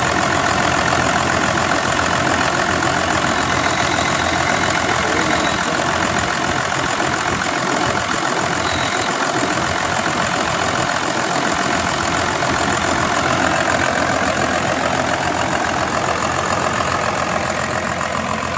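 1995 Dodge Ram's 12-valve Cummins 5.9-litre inline-six turbo diesel with a P-pump idling steadily shortly after a start-up, heard close up under the open hood.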